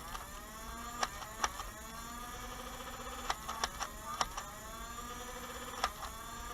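Nerf flywheel blaster motors whining, their pitch sliding slowly down as the flywheels spin down, with several sharp clicks from trigger pulls or darts firing and striking.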